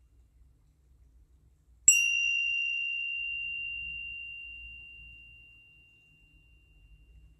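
A small meditation bell struck once, about two seconds in, giving a single clear high ringing tone that fades slowly away over about five seconds.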